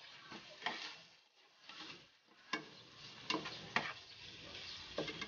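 Chopped bacon and ham sizzling in oil in a nonstick frying pan, stirred with a spatula that scrapes and taps against the pan several times.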